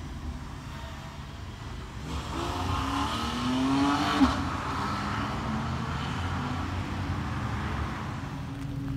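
A car engine revving up as the car accelerates away, rising in pitch for about two seconds and breaking off with a short sharp crack about four seconds in, then steadier engine and traffic sound.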